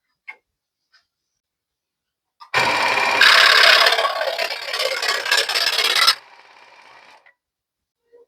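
Charnwood SS16F scroll saw's DC motor working a tool against material. It starts abruptly with about three and a half seconds of loud cutting noise, then runs lighter and quieter for about a second before stopping. A few faint clicks come before it.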